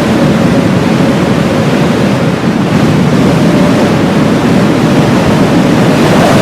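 Heavy blizzard wind: a loud, steady rush with a faint whistling tone above it.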